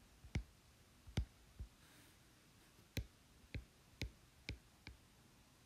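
Apple Pencil tip tapping on an iPad's glass screen during handwriting: about eight faint, irregular clicks, with a pause of about a second after the first few.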